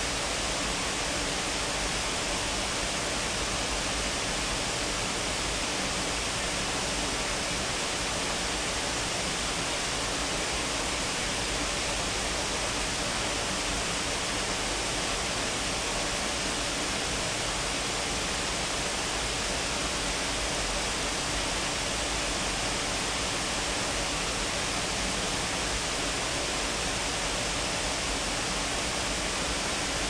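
Steady, even rush of water from Shiraito Falls, a wide curtain of many thin falls pouring off a cliff, mixed with the shallow rocky stream flowing below it.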